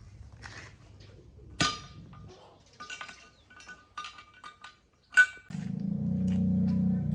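Metal tools clinking and clanging against metal parts in a series of sharp, ringing strikes, the loudest a little after five seconds in. Right after it a motor starts and runs with a steady low hum.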